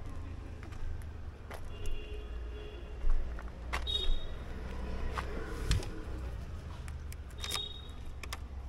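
A low, steady engine rumble with scattered sharp clicks and a few short high-pitched chirps.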